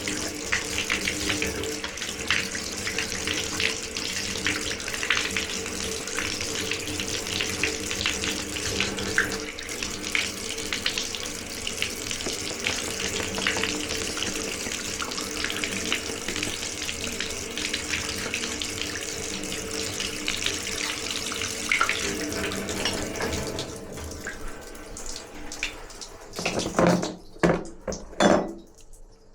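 Water running from a tap, a steady rush with a low hum under it, that is shut off about twenty-four seconds in. A few loud knocks follow near the end.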